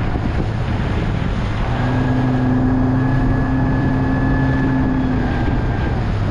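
Small fishing tender's motor running steadily, with wind and water noise over the microphone as the boat moves; a higher steady tone joins the engine hum for a few seconds in the middle.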